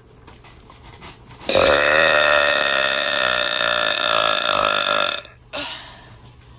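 A long, loud human burp with a steady pitch, starting about a second and a half in and lasting about three and a half seconds.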